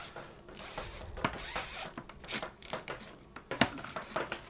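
Old kitchen faucet's hose and supply-line fittings being worked loose and handled: scattered light metallic clicks and clinks, with a brief rustle about a second in.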